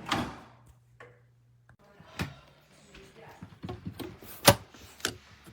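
A few sharp clicks and knocks, the loudest about four and a half seconds in.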